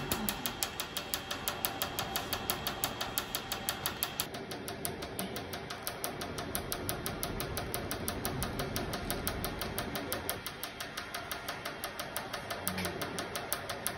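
Tattoo removal laser firing rapid, evenly spaced pulses on the skin, each one a sharp snap, about five a second.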